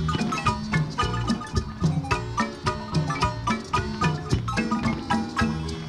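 Lively music with quickly struck, ringing pitched notes over a bass line, keeping a steady, even beat.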